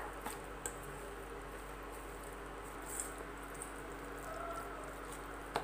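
Spoon stirring fenugreek leaves through thick, wet masala in a pan: soft squishing with a few light clicks, and a sharper tap near the end.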